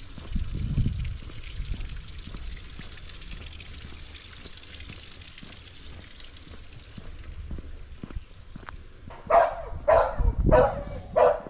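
A dog barks about five times in quick succession near the end. Before that there is only a low rumble and a steady hiss.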